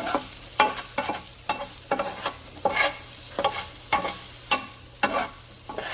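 Vegetables sizzling in a frying pan while being stirred, with a utensil striking and scraping the pan in irregular sharp clicks, about two or three a second.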